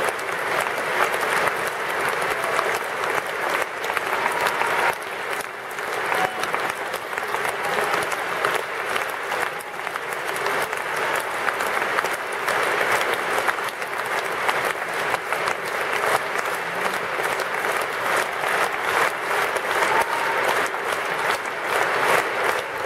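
A large concert audience applauding steadily: many hands clapping at once in a dense, unbroken patter.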